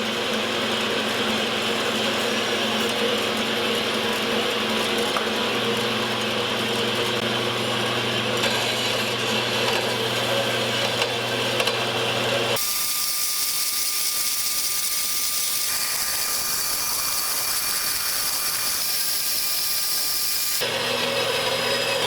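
Metal-working power tools running while stainless steel pipe is cut into feet and drilled: a steady machine hum. The sound changes abruptly to a hissier one a little over halfway through and back near the end, as between separate clips.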